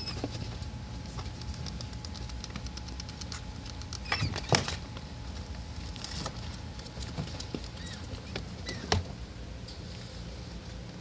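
A pet rat's claws pattering and scratching as it moves over wood-shaving bedding, cardboard and a plastic pan, in quick light clicks, with louder knocks about four seconds in and again near nine.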